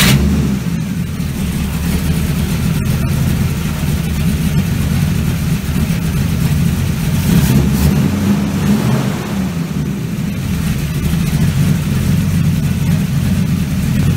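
Car engine starting up and then running steadily at idle.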